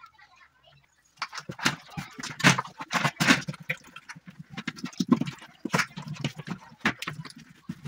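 Hands rubbing and kneading turmeric powder into raw skinned rabbit meat on a metal plate: irregular wet squelches and slaps, starting about a second in.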